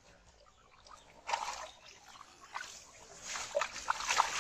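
Live fish thrashing in shallow water on a plastic tarp, splashing and slapping in irregular bursts that come faster and louder toward the end.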